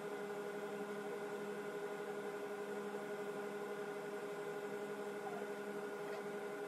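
A steady hum made of several held tones over a faint hiss, unchanging throughout.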